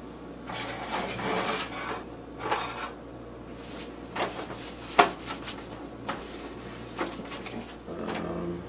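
Cookware being handled on a gas stove: scattered knocks and scrapes of pans and a lid, the sharpest knock about five seconds in.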